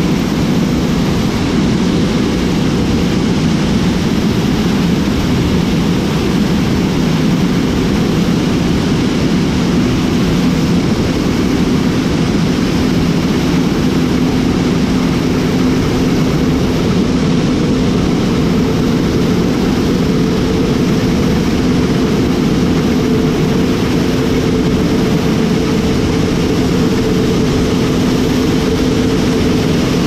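John Deere S790 combine running steadily while harvesting: a loud, even machine drone with a steady hum, as shelled corn streams from the grain-tank loading auger into the tank. The hum grows a little stronger about two-thirds of the way through.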